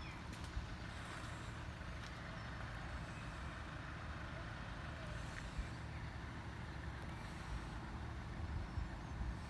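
Steady low rumble of a Class 175 diesel multiple unit approaching a level crossing, with road vehicles idling at the lowered barriers; the sound swells slightly near the end as the train nears.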